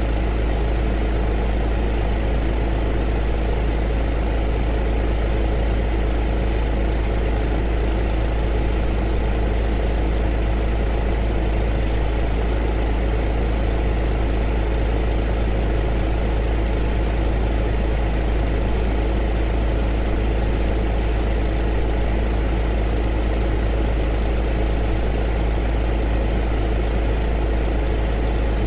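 Heater running steadily: a constant deep hum under an even rushing noise, with a few faint steady tones, unchanging throughout.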